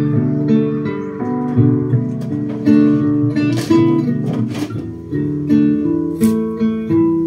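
Music: an acoustic guitar playing a run of plucked and strummed notes.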